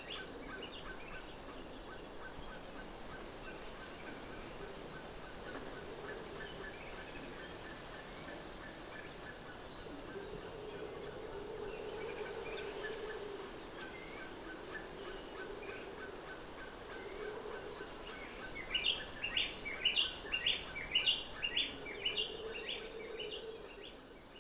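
Outdoor nature ambience of a tropical birding site: a steady high-pitched insect drone throughout, with a bird calling in fast series of short notes near the start and again from about 19 seconds in, and other animal calls in between.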